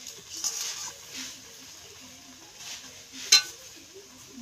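Metal spatula scraping and stirring thick, sticky jujube pickle in a metal kadai, then one sharp metal-on-metal clink with a short ring about three seconds in as the spatula knocks against the wok.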